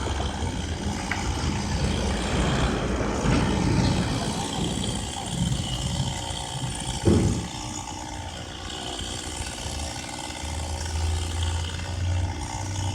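An engine running at a steady low idle, with one loud sharp thump about halfway through.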